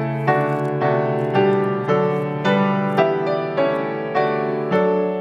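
Piano playing a hymn tune in slow, even chords, a new chord struck roughly every half second.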